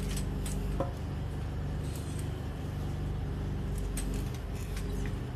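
High-pressure drain-jetting machine running steadily, a low even engine drone, with a few light clinks and knocks from tools at the floor trap.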